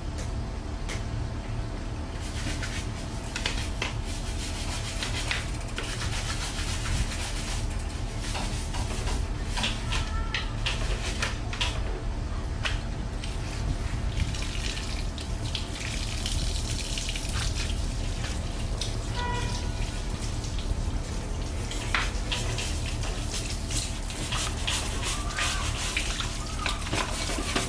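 Washing an electric mountain bike by hand: a wet sponge scrubs the frame and tyre, water splashes and drips onto the tiled floor, and there are scattered small clicks of handling. A steady low hum runs underneath.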